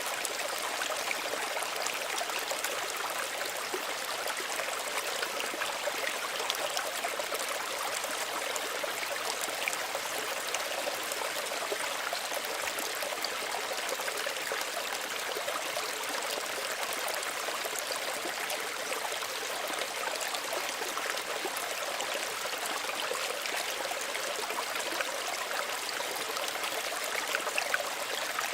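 Small stream of running water, a steady gentle babbling and trickling with little splashes throughout.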